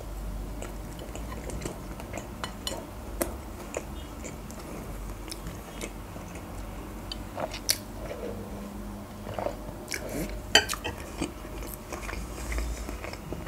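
Close-up eating sounds: mouth clicks and chewing of a burger, with a metal spoon clinking against a glass soup bowl. Short sharp clicks are scattered throughout, the loudest about ten and a half seconds in.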